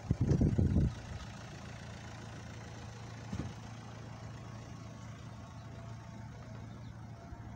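A few loud, irregular rumbles in the first second, then a steady low engine hum, like a vehicle idling.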